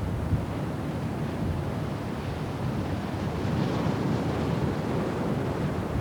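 Storm wind blowing on the microphone over rough North Sea waves: a steady noisy rush, with a hissing surge of wave wash about halfway through.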